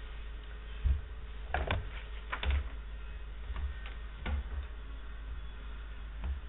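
Scattered knocks and clicks on a desk, about half a dozen spread over a few seconds, as a small whiteboard is picked up and set in front of the camera, over a steady low hum.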